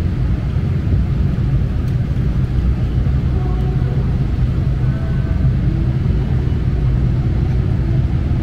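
Steady low roar of a jet airliner's cabin noise in cruise or descent: engine and airflow noise heard from an economy-class seat.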